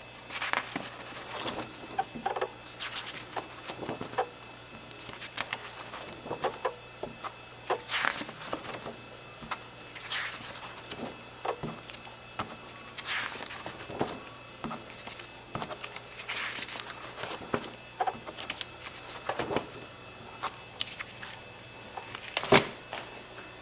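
Stiff stamp-album pages being turned in a three-ring binder, paper rustling and soft handling noises every second or two, then the closed binder being handled. A sharp knock near the end is the loudest sound, over a steady low hum.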